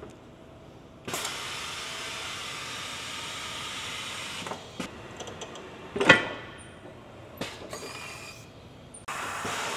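Pneumatic tyre changer mounting a tyre on a wheel: air hissing in two long spells, with one loud clunk about six seconds in.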